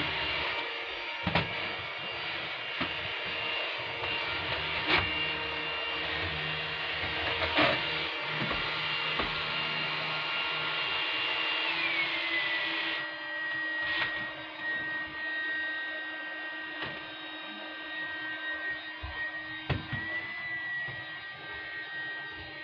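Vacuum cleaner running steadily with a high whine, broken by a few sharp knocks in the first several seconds. About twelve seconds in, the whine slides down in pitch and the sound turns duller.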